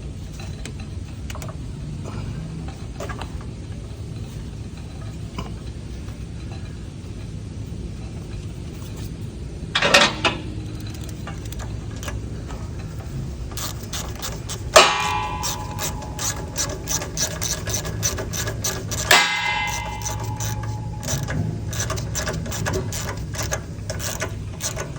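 Ratchet wrench clicking in quick runs as a bolt is driven down, with three ringing metallic clangs of tools striking metal, over a steady low hum.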